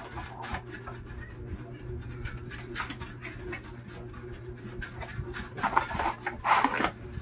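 Cardboard box and packaging of a small solar panel being handled and pulled open: scattered scrapes, taps and rustles, with a louder stretch of rustling near the end.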